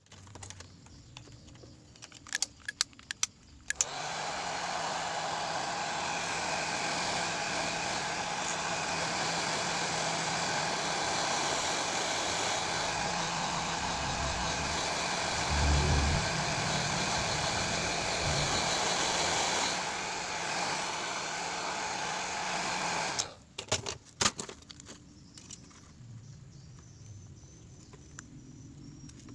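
Hair dryer starting with its fan whine about four seconds in, running steadily for about twenty seconds, then switched off abruptly. Scattered clicks come before it starts and after it stops.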